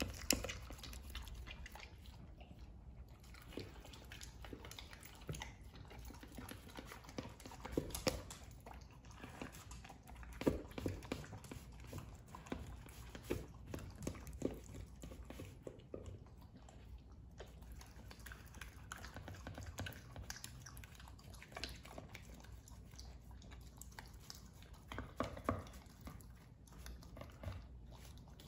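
Welsh corgi eating chunks of carrot and other vegetables from a plastic slow-feeder bowl. Irregular chewing and crunching is mixed with sharp clicks as it picks pieces out of the bowl.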